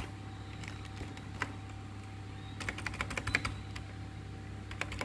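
Keys of a mechanical keyboard being pressed, a newly fitted resin keycap among them: a few single clacks, then a quick run of presses about two and a half seconds in and a few more near the end.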